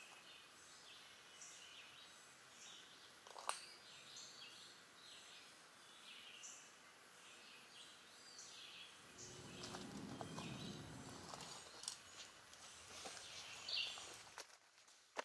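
Faint forest ambience: scattered short bird chirps, with a single click about three and a half seconds in and a low rumble from about nine to twelve seconds in.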